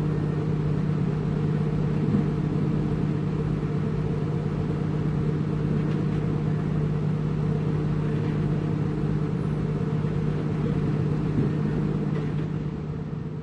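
Heavy construction machine's diesel engine running at a steady speed, with a constant low hum that fades out near the end.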